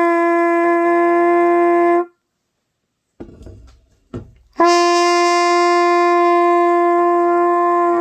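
Trumpet sounding two long held notes on the same pitch. The first ends about two seconds in, and after a short gap the second starts about four and a half seconds in and is held steadily to the end: beginner long-tone practice.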